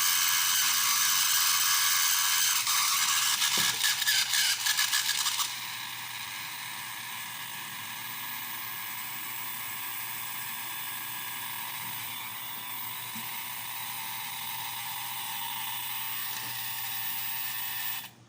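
Small electric motor and gear train of a toy horse-racing game running, at first loud with a rattling, grinding noise, then about five seconds in dropping to a quieter, smoother running once oiled, the motor's noise fault cured. It cuts off suddenly near the end.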